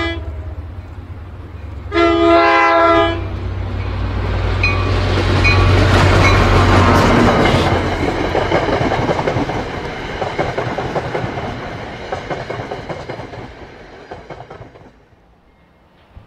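Diesel freight locomotive's horn: the tail of one blast just at the start, then a second blast about a second long, sounding several notes together. Then the train's engine rumble and the rushing clatter of passing freight cars, rising to a peak and fading away.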